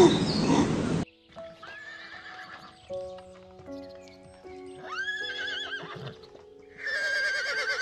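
A loud noisy sound cuts off about a second in. Then a horse whinnies three times, each call a high wavering neigh with a quavering pitch, the last the longest, over soft background music with held notes.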